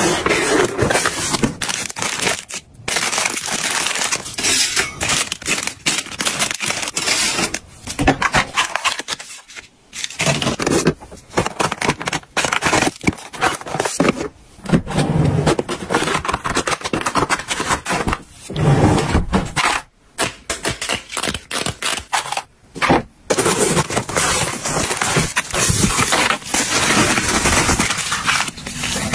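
Plastic snack packaging crinkling and rustling as cardboard snack boxes are unwrapped and opened and small plastic snack sachets are tipped out into a pile. It comes in dense handling stretches with several short pauses.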